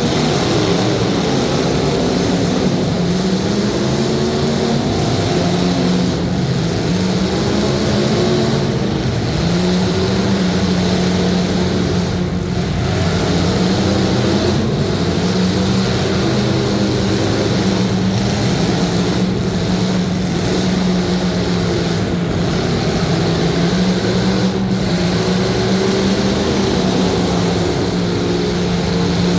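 Demolition derby car engines running loud and unsteady, their pitch rising and falling as the cars are revved, over a constant wash of noise.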